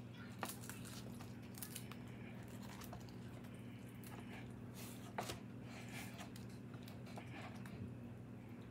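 Hands tearing warm roasted chicken meat off the bone in a foil pan: soft tearing and squishing with a few sharp clicks, over a low steady hum.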